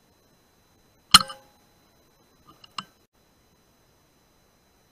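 A .22 Daystate Pulsar PCP air rifle firing once about a second in: a single sharp shot with a brief ringing tail. A few light clicks follow near the middle.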